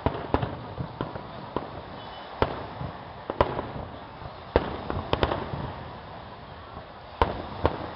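Aerial firework shells bursting in the sky: about a dozen sharp bangs at uneven intervals over a steady background hiss.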